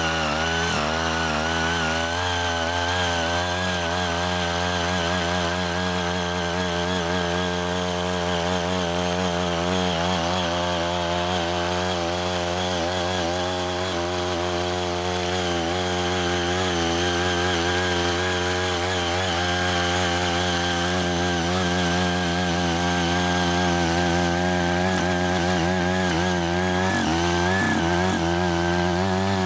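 Small petrol engine of a CY80 mini hand tiller running steadily under load as its rotary tines churn the soil. Its pitch wavers slightly with the load and dips and rises again near the end.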